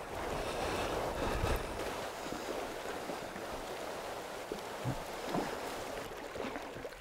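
Steady rushing of flowing river water over a shallow run.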